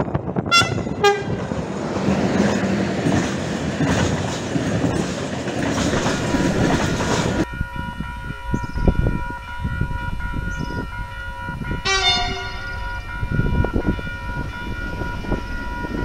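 An electric freight locomotive gives two short horn toots, then it and its container wagons pass close by with loud rail and wheel noise. The sound cuts off abruptly, and after it a distant train's horn sounds once for about a second, about twelve seconds in.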